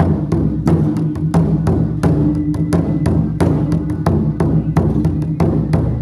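Chinese gong-and-drum (luogu) percussion playing a steady, driving rhythm: drum beats under crashing gong and cymbal strikes, about three strikes a second, as a practice backing track.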